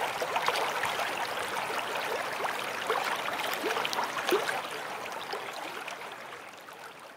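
Running water of a babbling stream, with small bubbling and gurgling sounds over a steady rush, fading out over the second half.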